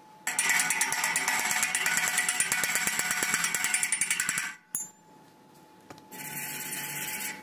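Chipping hammer knocking slag off a fresh stick-weld bead on steel square tube: a rapid run of sharp metal taps for about four seconds. A second, shorter stretch of noise follows near the end.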